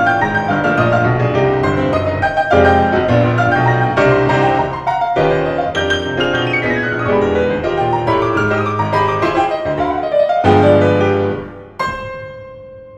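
Grand piano played four hands, two players at one keyboard, in a busy passage of many overlapping notes and chords. About ten and a half seconds in comes a strong chord, and its sound then dies away toward the end.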